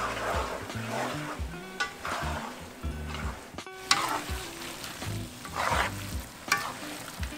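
Spaghetti and cherry tomatoes sizzling in a frying pan while a wooden spoon stirs and tosses them, in repeated swishes with a few sharp taps. Background music with sustained low notes plays underneath.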